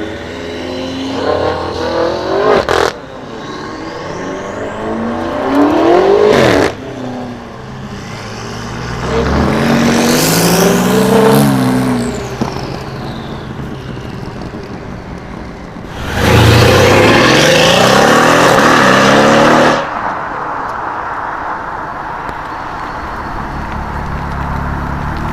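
Modified cars' engines and exhausts revving hard and accelerating in a string of short cuts, the pitch climbing with each pull. One car passes with its pitch dropping, and a long full-throttle run about two-thirds of the way through is the loudest part.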